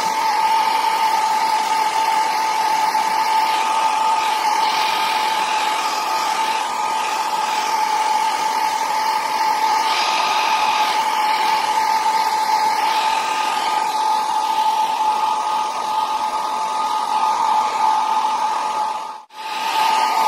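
Handheld hair dryer running steadily as it blows on hair: a loud rush of air with a steady whine. It breaks off for an instant near the end.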